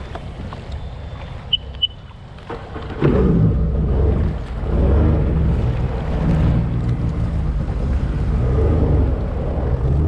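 Sea-Doo GTI 130 jet ski's three-cylinder four-stroke 4-TEC engine pulling away: low and quiet at first with two short beeps, then about three seconds in it opens up and runs loud, its pitch rising and falling with the throttle, running again now that a rope has been cleared from its jet pump.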